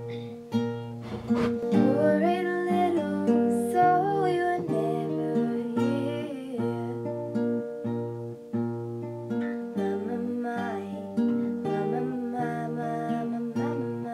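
Acoustic guitar played in held chords and plucked notes, with a girl singing along over it in parts.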